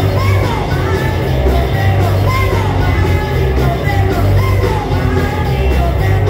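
Live rock band playing: a woman singing into a microphone over electric guitar, bass guitar and a drum kit.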